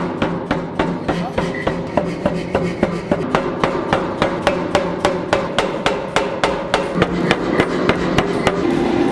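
Anyang 165 self-contained air power hammer pounding a red-hot steel bar in quick, even blows, about three to four a second, over a steady hum, as the bar is drawn down into a taper.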